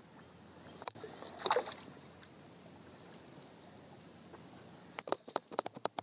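Water sloshing around legs wading in a shallow creek, over a steady high insect trill. A quick run of sharp clicks comes near the end.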